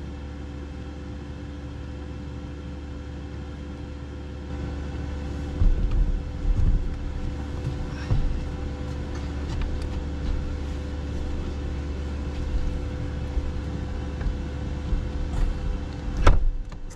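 Diesel air heater running with a steady low hum and a few constant tones. About four seconds in it gets louder, and a few knocks and clunks come through, the loudest near the end.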